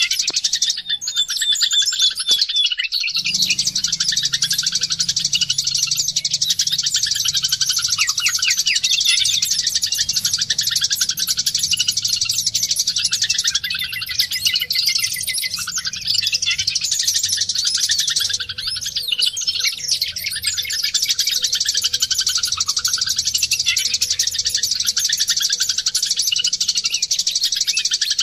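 White-eyes (pleci, Zosterops) singing: a fast, unbroken, high-pitched twittering chatter of rapid trills and chirps, the dense kind of song used as a lure to get a quiet white-eye to start singing.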